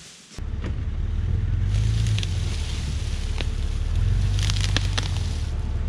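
Jeep Cherokee engine idling steadily, a low rumble that starts suddenly about half a second in, with a few light clicks over it.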